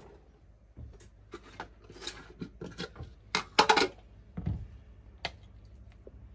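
Kitchen handling sounds: the plastic lid of a glass jar taken off and a metal spoon clinking and scraping against the jar. A few sharp clinks are loudest about three and a half seconds in, with a dull knock about a second later.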